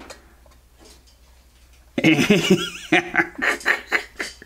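A few faint ticks from a hand nut driver tightening screws, then, about two seconds in, a man's high, squeaky, wavering giggle-like vocalisation with no words.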